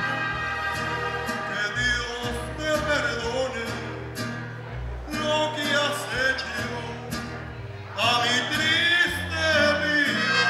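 A man singing a Spanish-language song live into a handheld microphone over instrumental accompaniment. The accompaniment plays alone at first; the voice comes in about two seconds in and sings in phrases with short breaks.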